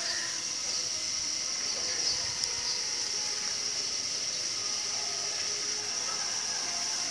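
A steady high-pitched hiss, with a few faint short chirps scattered through it.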